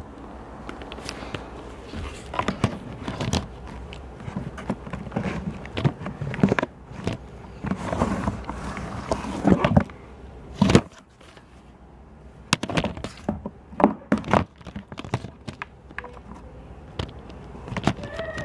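Handling noise from a camera being grabbed and moved around: irregular knocks, bumps and rubbing, with the sharpest knock a little over halfway through.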